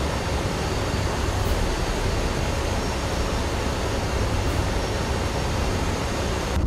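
Aircraft engines and proprotors running steadily in flight, heard from an open cabin door: an even, dense rumble with hiss over it.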